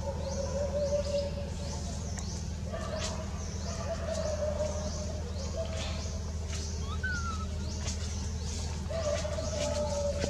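Birds chirping in quick repeated short calls that fall in pitch, over a steady low hum. A wavering mid-pitched tone sounds at times.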